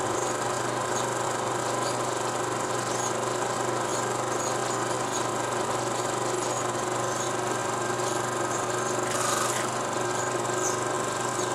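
16 mm film projector running: a steady mechanical whir with a constant hum and faint ticking, and a brief louder rasp about nine seconds in.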